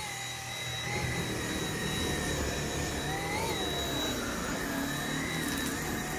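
Dyson V7 cordless stick vacuum running, a steady whine over a rushing hiss; the whine rises and dips slightly in pitch a few times.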